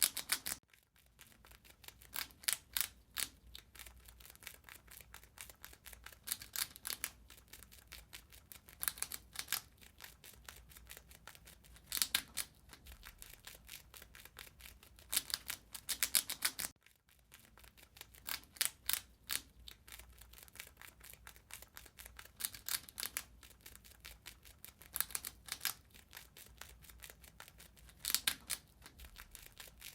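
A rat gnawing and chewing food: rapid, crisp clicks in short clusters every second or two.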